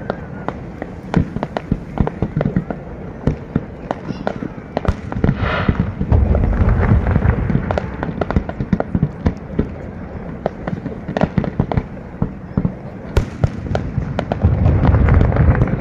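Fireworks display: a rapid stream of sharp pops and crackles from aerial shells bursting, with louder, deeper bursts about six seconds in and again near the end.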